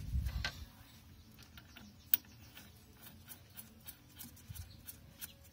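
Small metallic clicks and light handling noise as a nut is fitted by hand onto the Velvet Drive 71C transmission's output shaft. One sharper click comes about two seconds in.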